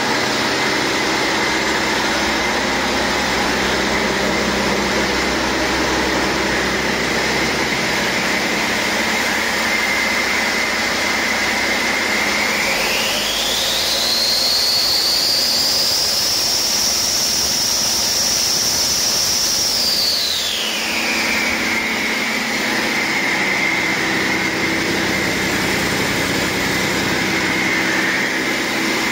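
2012 Cummins ISX15 inline-six diesel engine running on a test stand, with a steady high turbocharger whine. About twelve seconds in it is revved up: the whine rises sharply in pitch, holds for about six seconds, then falls back as the engine returns to idle.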